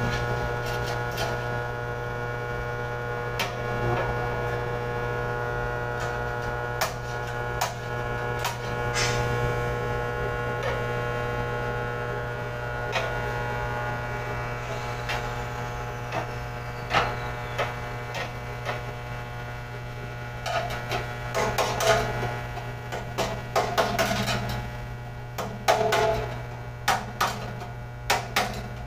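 Steady mains hum from the electrical-room equipment, with scattered clicks and knocks of metal conduit and fittings being handled, coming more often in the last third.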